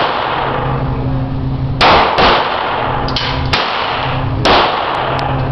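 Handgun shots at an indoor range: four sharp reports, two in quick succession about two seconds in, then two more spaced about a second apart, each ringing off the range walls. A steady low hum runs underneath.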